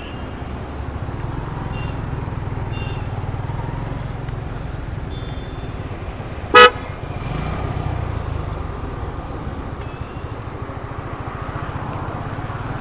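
Steady rumble of a moving motorcycle on the road, with one short, loud vehicle horn toot about six and a half seconds in and a few faint short beeps earlier.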